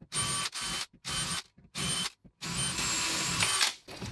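Power drill run in short bursts of under half a second, with one longer run of about a second near the end, drilling pilot holes into a chipboard wall for wood screws.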